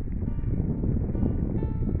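Wind buffeting the microphone in a dense low rumble, with faint music whose notes come through more clearly about a second in.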